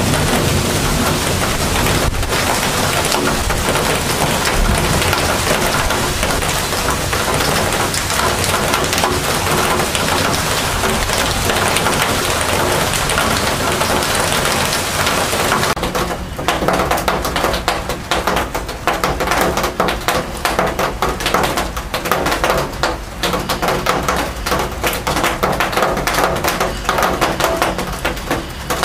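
Heavy thunderstorm rain pouring steadily as a dense hiss. About sixteen seconds in it turns patchier, with separate drops and splashes ticking.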